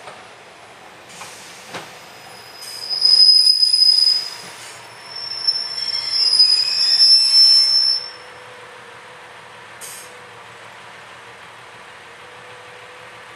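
Pacer diesel railbus running into a station platform, its wheels squealing loudly twice in a high pitch as it slows and stops. After that its engine idles with a steady low hum.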